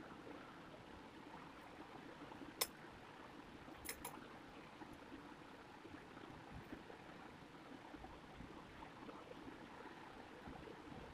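Near silence: a faint steady hiss, broken by a sharp small click about two and a half seconds in and a quick pair of clicks about a second later, from seed beads being handled and threaded.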